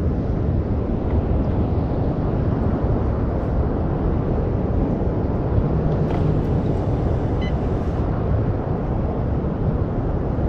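Steady low rumble of wind buffeting the action camera's microphone.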